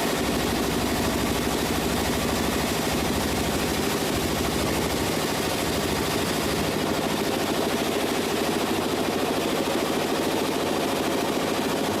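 Sawmill machinery running steadily, a rapid even rattle of fast mechanical strokes over an engine-like drone.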